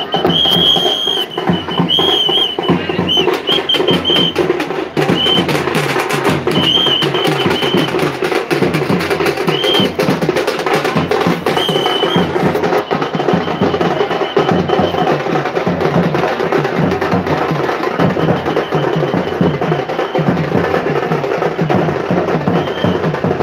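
Loud percussion music: drums beating a fast, busy rhythm, with short, shrill, wavering high tones over it in the first half.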